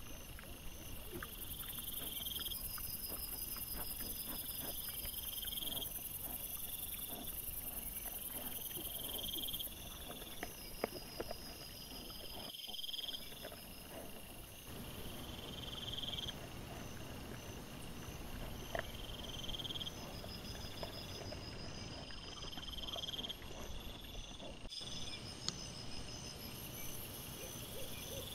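Night insects, crickets or katydids, chirping in short high pulses about every two seconds over a low steady hiss. Scattered faint clicks and rustles run through it.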